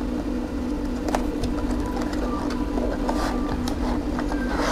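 Cardboard box and plastic packaging handled: scattered light clicks and brief rustles as the paper insert and plastic-wrapped phone holder are slid out of the box. Under it runs a steady low mechanical hum.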